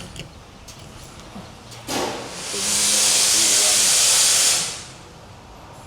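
A knock, then a loud, steady hiss of compressed air that builds up, holds for about two and a half seconds and dies away.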